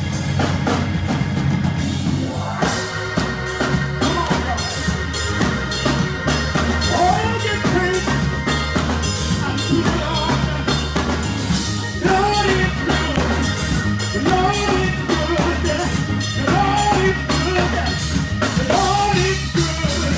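Gospel praise and worship music: a live band with a steady drum kit beat and bass, and a singing voice coming in about two and a half seconds in.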